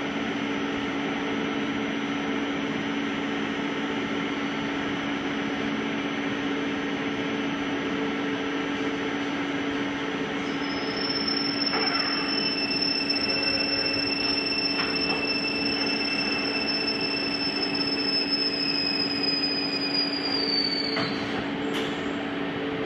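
Mori Seiki MV-40 CNC vertical machining center running with a steady hum. About ten seconds in a high whine starts, drifts slightly lower, and falls away near the end, followed by a clunk.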